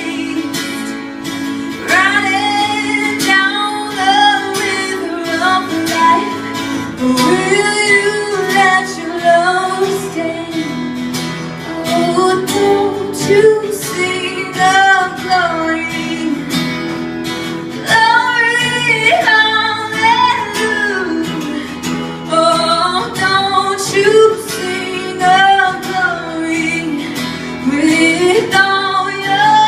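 A song: a singing voice over guitar accompaniment.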